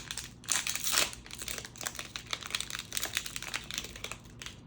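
Packaging crinkling and crackling in quick irregular clicks as a cardboard advent calendar door is pulled open and the figure worked out. It is loudest about half a second to a second in and fades near the end.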